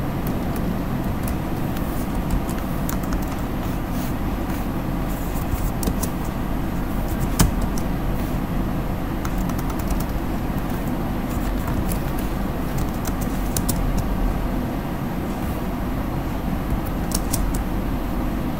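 Scattered computer keyboard key clicks over a steady low background rumble and hum, with one sharper click about seven seconds in.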